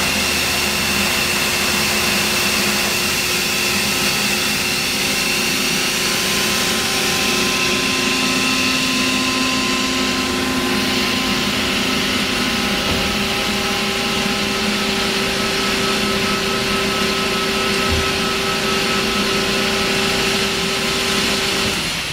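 Ingersoll Rand UP6-20-125 rotary screw air compressor with a 20 HP three-phase electric motor, running under power. A steady, loud machine hum with several constant tones that shift slightly about halfway through.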